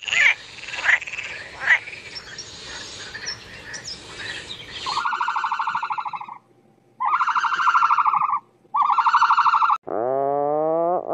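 Frog croaking: three rapid, rattling croaks of about a second each, after a stretch of mixed chirps and short calls. Near the end a different, lower animal call begins, rising and then falling in pitch.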